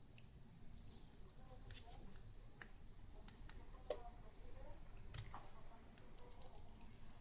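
Faint scraping and a few sharp little clicks of a razor blade prying at the glued front screen of a FiiO M6 music player, over a steady faint hiss.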